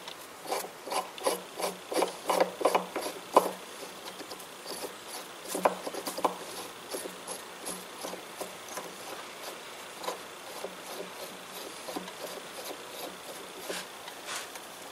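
A hand file being stroked across metal: a run of even strokes, about three a second, then lighter, more scattered strokes.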